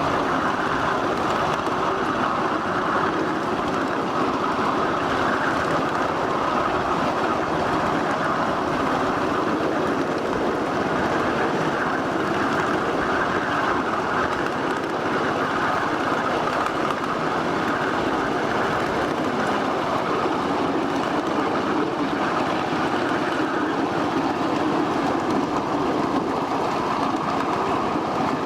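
1/8-scale ride-on miniature train rolling along its track: a steady running noise of wheels on rail that holds at an even level throughout.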